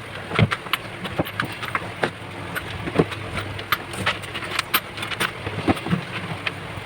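Small metal parts and hand tools being handled while parts are fitted to a welding machine's case: irregular clicks and light knocks, several each second.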